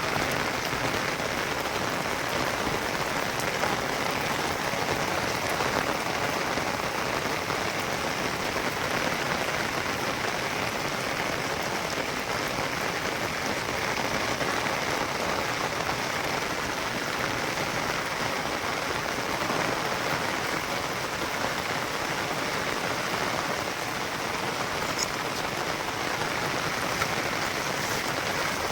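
Steady heavy rain falling and pattering on surfaces, an even continuous hiss with no let-up.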